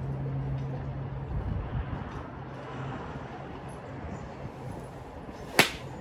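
A golf club striking a ball off a range mat: one sharp crack about five and a half seconds in, over wind noise.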